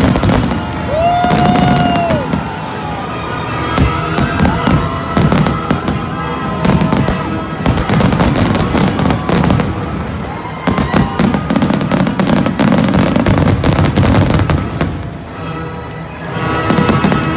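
Fireworks going off in quick, dense volleys of bangs and crackles, heaviest in two long runs through the middle, with music playing underneath.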